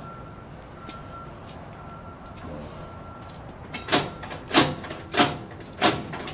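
Semi-trailer landing gear being hand-cranked: four loud, noisy strokes about two-thirds of a second apart, one with each stiff turn of the crank, starting about four seconds in. The landing gear is hard to crank.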